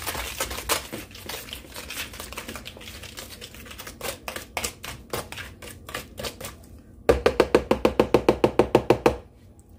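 Metal fork mixing mashed banana and sugar in a ceramic bowl: irregular clicks and scrapes of the fork against the bowl, then, about seven seconds in, around two seconds of fast, even beating at roughly ten strokes a second that stops abruptly.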